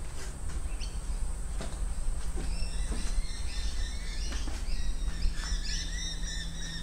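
High-heeled platform boots knocking on old wooden floorboards in a few slow, spaced steps. Birds chirp and trill from about two and a half seconds in.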